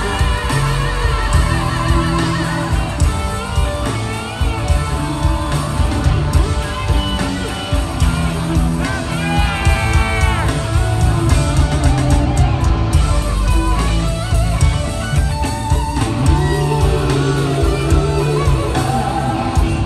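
Live rock band playing through an arena PA, with electric guitar, bass and drums, heard from within the crowd. A high lead line bends up and down in pitch about halfway through.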